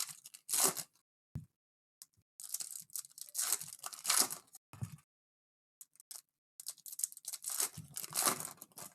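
Trading card pack wrappers being torn open and crinkled in irregular bursts of rustling.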